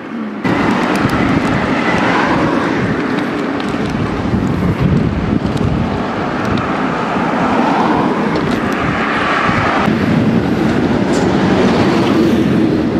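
Steady wind rush over the microphone while riding a mountain bike, mixed with the bike's tyre and rolling noise. It comes in suddenly just after the start and carries on without a break.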